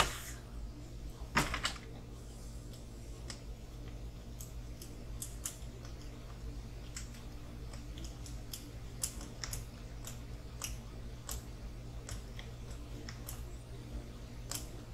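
Small RC crawler drivetrain parts being handled and fitted by hand: two light knocks near the start, then scattered faint clicks over a low steady hum.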